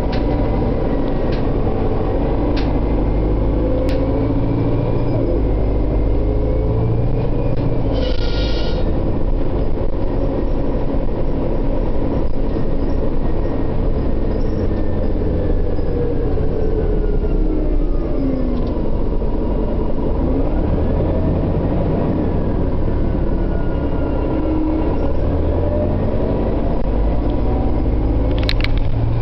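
Inside a 1999 New Flyer D60LF articulated diesel bus under way: a steady low engine rumble, with a drivetrain whine that rises and falls in pitch as the bus speeds up and slows. A brief high-pitched squeal comes about eight seconds in, and a few light clicks come near the end.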